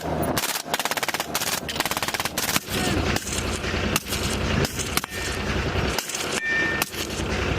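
Heavy machine guns firing short bursts, rapid and close together in the first three seconds, then more spaced-out reports and short bursts.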